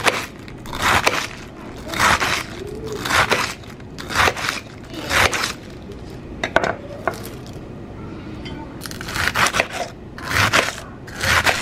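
Knife slicing through crisp lettuce onto a wooden cutting board: a crunchy chop about once a second, with a pause of about two seconds past the middle.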